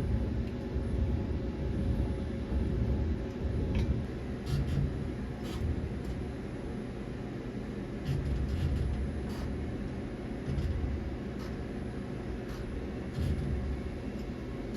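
Low uneven machine rumble from an alloy-wheel CNC lathe moving its digitizing probe away from the rim, with faint scattered ticks.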